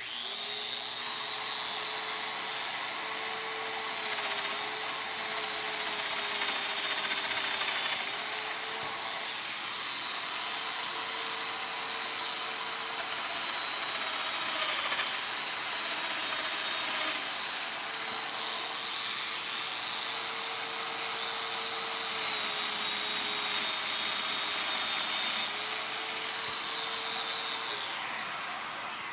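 Festool Domino joiner running while it cuts mortises in a wooden panel for floating-tenon dominoes: a steady high motor whine whose pitch sags several times as the cutter plunges into the wood. It switches off near the end, and the sound then dies away.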